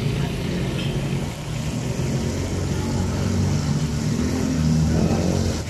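A vehicle engine running close by with a steady low hum, growing louder and rising slightly in pitch about four to five seconds in.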